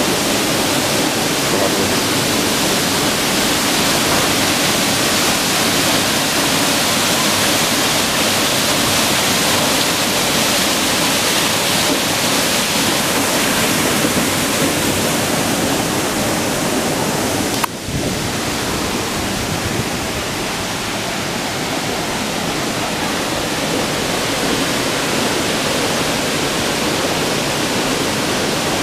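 River water rushing through a narrow rock gorge and over small cascades, a steady, full hiss of moving water. The sound breaks off for an instant about two-thirds of the way through, then goes on slightly duller.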